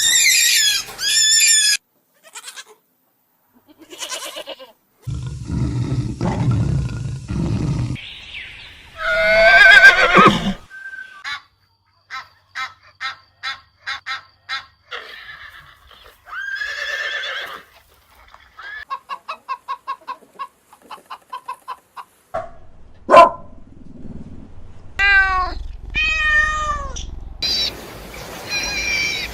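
Recorded calls of several different farm animals played one after another, each a few seconds long with short gaps between them, some high-pitched and wavering, some a quick run of short even pulses.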